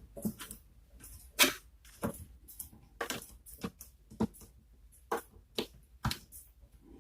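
Irregular light clicks and taps, about a dozen, from the internal parts of a power bank being handled and fitted back into place during reassembly.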